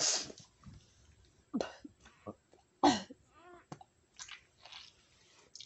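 A woman coughing and clearing her throat in a few short bursts, the strongest about three seconds in.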